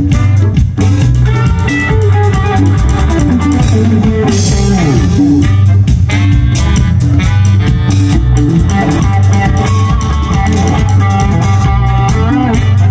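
Live blues band playing through a stage PA: electric guitar over drum kit and bass, with gliding notes.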